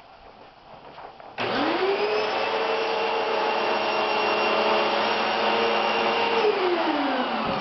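Vacuum cleaner switched on about a second and a half in: the motor whine rises quickly to a steady pitch over a rush of air. Near the end it is switched off and the whine falls away as the motor spins down.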